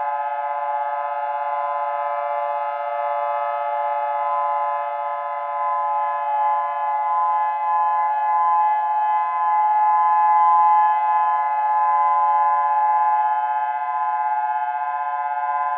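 Steady electronic drone: a loud chord of many held tones that stays on one pitch throughout, with a slight waver in loudness, siren-like in character.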